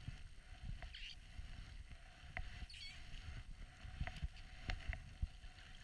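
Gloved hands pulling fishing line up through a hole in the ice, heard faintly as irregular low handling knocks and rumble on the camera, with a few sharp clicks and brief squeaks.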